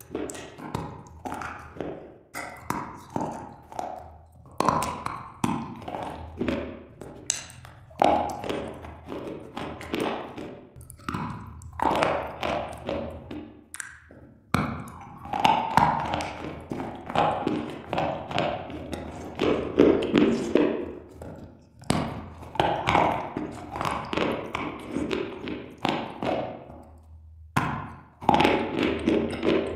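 Close-up crunching of slate bars being bitten and chewed, a dense run of sharp crackling bites and grinding, broken by a few short pauses.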